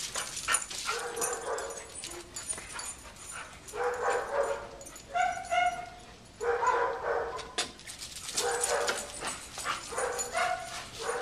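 Several dogs barking and giving higher-pitched yelps in short repeated bursts while they chase and wrestle in play.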